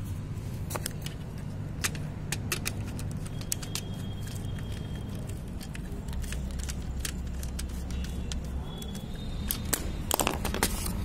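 Irregular small clicks and ticks of wires and a screwdriver being worked into the terminals of a modular switch plate, with a busier run of clicks near the end, over a steady low hum.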